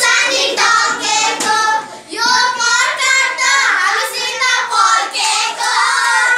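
Children singing a Nepali lok dohari folk song without a break, with some hand clapping.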